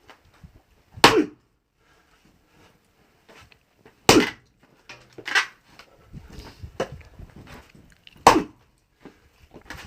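Axe chopping into a thick oak log: three hard blows a few seconds apart, with lighter knocks between. The thick butt end is not splitting readily.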